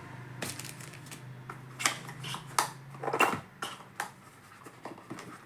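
Smartphone box contents and paper packaging being handled: a scattered series of light clicks and rustles, about eight in all.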